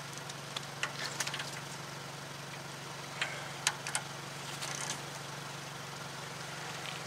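A handful of short, scattered clinks of a socket wrench being handled and fitted at the front hub and suspension, over a steady low hum.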